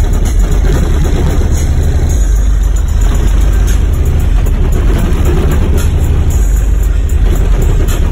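Two 18-inch subwoofers in a box behind the seats play loud, deep bass inside the vehicle cabin. The low rumble stays steady and close to the recording's loudest level.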